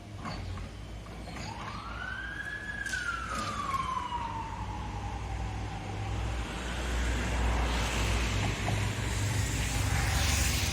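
Heavy construction machinery running with a low diesel rumble that grows louder in the second half. About a second and a half in, a single whine rises quickly, then slowly falls away over a few seconds. A few light clicks come around the whine's peak.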